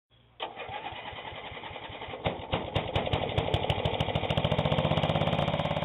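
An engine starting, then running with a steady beat of firing pulses that grows faster and louder from about two seconds in.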